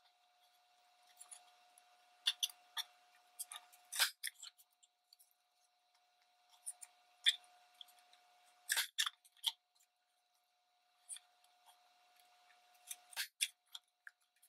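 Handheld paper corner punch clicking as it snaps through the corners of paper pieces: a series of separate sharp clicks a second or more apart, the loudest about four seconds in and about nine seconds in.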